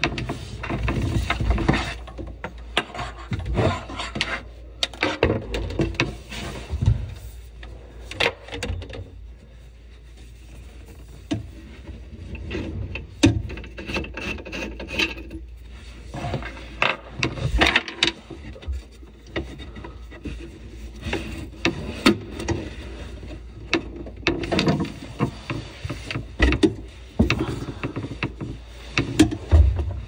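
Braided water supply hoses and hands rubbing, scraping and knocking against a plywood sink cabinet and its pipe fittings, with many irregular clicks and scrapes.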